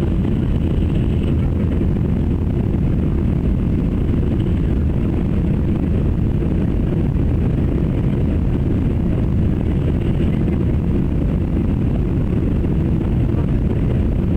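Steady, loud drone of an airplane in flight heard from inside the cabin, engine and airflow noise with the energy low down and no change in level.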